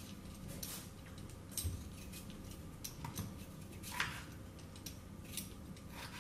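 Potatoes being cut and peeled by hand: a kitchen knife clicking down through potato onto a cutting board and a peeler scraping the skin, in irregular light clicks and scrapes. A faint low steady hum underneath.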